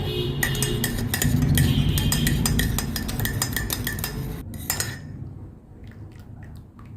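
Cutlery clinking against crockery: rapid metallic taps, each with a short ring, thinning to a few scattered clinks after about five seconds.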